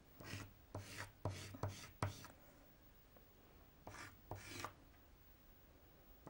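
Soft pastel stick rubbed across paper in short strokes: a quick run of about five in the first two and a half seconds, then two or three more about four seconds in.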